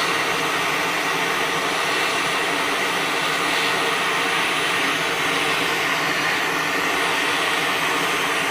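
A steady, even rushing roar from the metal-melting setup's heat source running continuously.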